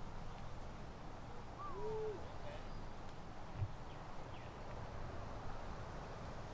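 A short bird call about two seconds in: a falling note followed by a low, rounded hoot-like note, over steady outdoor background noise. A single low thump about three and a half seconds in.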